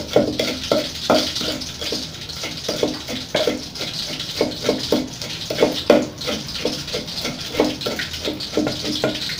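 A wooden pestle pounding in a large wooden mortar, grinding a wet paste: a run of dull knocks at about two to three strokes a second over a steady hiss.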